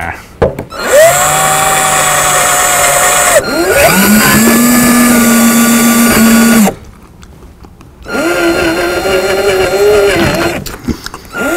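Cordless drill spinning an ear of corn on the cob against the eater's mouth, its motor whining loudly in three runs of a few seconds each. Each run rises in pitch as the drill spins up, holds steady, then cuts off, and it starts up again right at the end.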